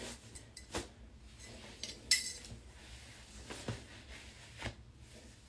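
A few short, light clicks and clinks spaced about a second apart, the loudest about two seconds in.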